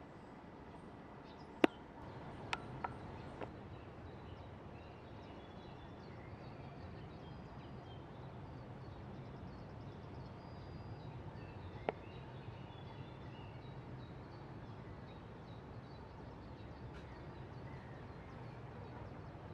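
Outdoor ambience: a steady low hiss with faint, distant bird chirps, broken by a few sharp clicks, the loudest about a second and a half in, then three smaller ones soon after and one more about twelve seconds in.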